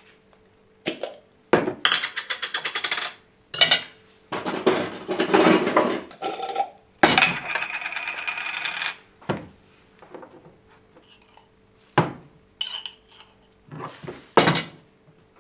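A table knife scrapes spread out of glass jars and across slices of bread, with jar lids being twisted off and jars and the knife clicking and knocking on the counter. The scraping comes in three stretches of a second or two each, the first with rapid ticking, and separate knocks come between them.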